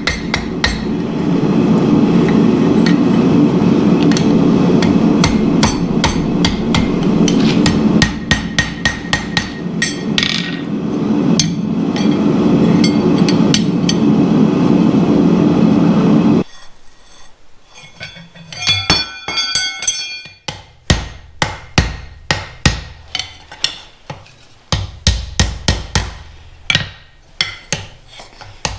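Blacksmith's hammer striking hot steel on an anvil in quick runs of blows while forging tongs. For the first part a steady low roar runs under the blows and stops suddenly partway through. After that the blows stand clear, some of them ringing.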